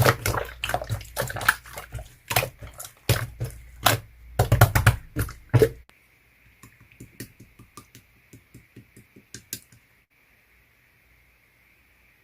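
Clear slime being squished and kneaded by hand, making dense wet clicks and squelches. About six seconds in it drops abruptly to soft, scattered clicks.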